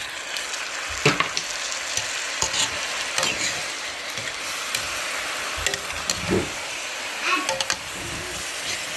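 Pot of jollof rice sizzling steadily as a cup of water is added to the hot rice, with a few knocks and scrapes of a spoon against the pot.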